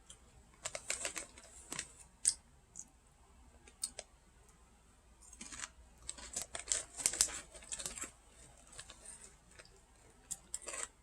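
Crunching of crispy, spicy potato sticks being chewed: irregular bursts of sharp crackles, with the busiest bursts about a second in, around the middle and near the end.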